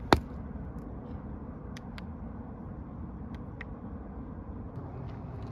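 Steady low outdoor rumble of distant traffic, with one sharp knock right at the start and a few faint ticks after it.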